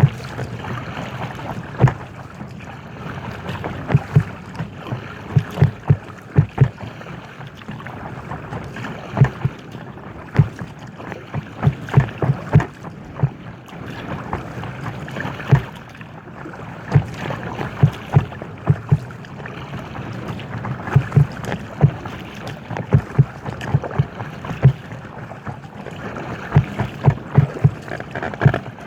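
Paddling an inflatable kayak: many irregular low slaps and thumps of water against the hull, often in quick runs, over a steady hiss of wind and water on the microphone.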